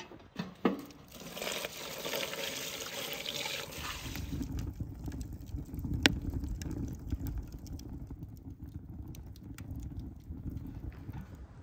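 A large aluminium pot set down on a wood stove with two knocks, then a few seconds of rushing noise, then burning firewood crackling and popping, with one sharp pop about six seconds in.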